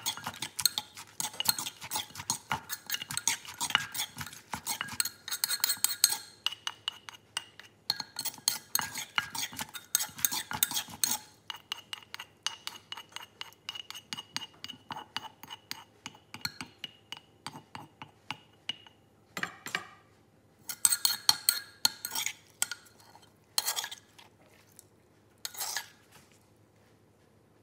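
Wooden pestle knocking and a metal spoon scraping inside a terracotta mortar as green papaya salad is pounded and tossed. The quick clicks and knocks run densely at first, thin out after about eleven seconds, and come back in a few short clinking bursts later.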